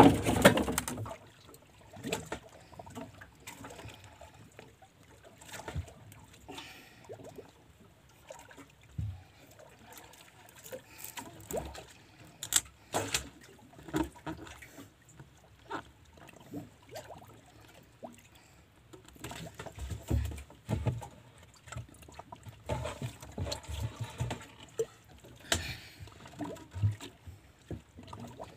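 Scattered knocks, taps and creaks of a small fishing boat, with water lapping at the hull, while a fisherman hauls in a handline by hand.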